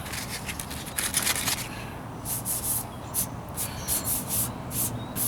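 Hand sanding with 220-grit sandpaper on cured Bondo body filler: short, scratchy rubbing strokes in uneven groups.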